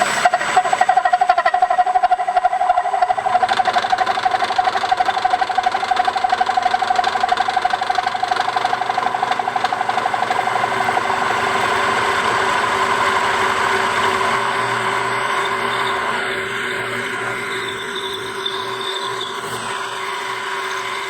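Milling machine with a T-slot cutter cutting a slot into a steel plate: a steady machining run with a fast, even flutter as the cutter teeth bite. The tone shifts a little about three seconds in and again a few seconds before the end.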